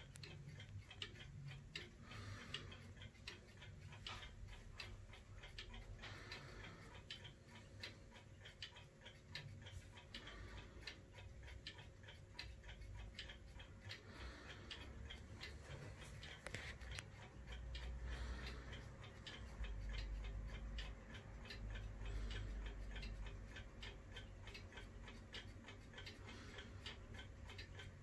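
Faint, steady ticking of a mini Comtoise wall clock's German SBS eight-day movement as its harp pendulum swings. A low rumble rises under the ticking for a few seconds past the middle.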